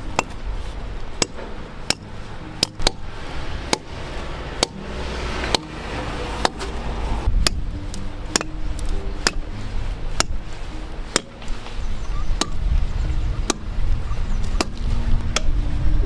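Sledgehammer striking short steel rebar dowels, driving them into holes drilled in a concrete wall. Sharp metallic blows come about once a second, each with a brief ring.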